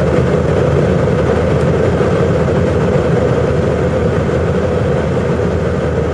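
Steady jet engine and airflow noise of an airliner heard from inside the passenger cabin, a continuous low rumble with no change in pitch.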